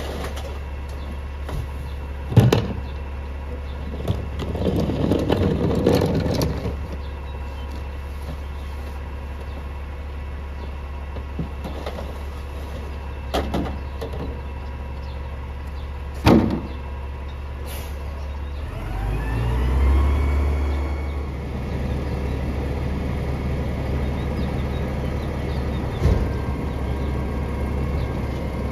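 McNeilus rear-loader garbage truck on a CNG-fuelled Mack LEU chassis idling with a steady low hum, while plastic recycling bins are knocked against the hopper and recyclables clatter in about five seconds in. About 19 seconds in, the engine speeds up with a rising whine and holds as the hydraulic packer cycles to compact the load.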